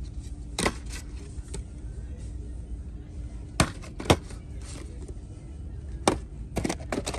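Sharp clicks and knocks of plastic-windowed diecast-car boxes being handled and set down on a store shelf, about six in all, over a steady low hum.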